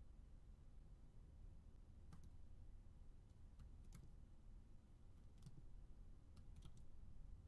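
Faint, scattered clicks of a computer keyboard and mouse, about nine in all, over a low steady hum.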